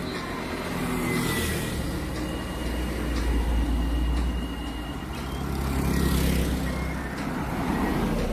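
Road traffic passing close by: cars and a heavier vehicle go past one after another, a low rumble that swells and fades about three times.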